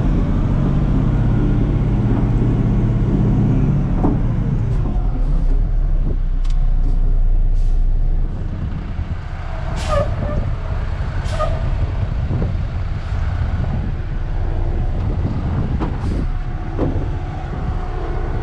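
Heavy diesel truck engine running steadily, settling to a lower, quieter run about eight seconds in, with a few short, sharp sounds over it.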